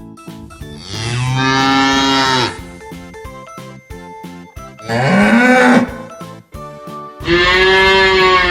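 Cow mooing three times, long pitched moos with a shorter one in the middle, over light background music.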